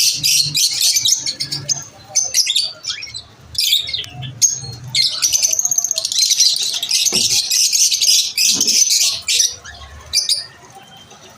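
Lovebirds chirping and chattering in rapid, high-pitched calls. A dense unbroken run of chatter in the middle dies down to a few scattered chirps near the end.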